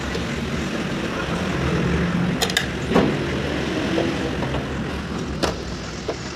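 Steady rumble of motor vehicle engine noise in the background, with a few sharp clicks and knocks as motorcycle body parts and fittings are handled; the loudest knock comes about three seconds in.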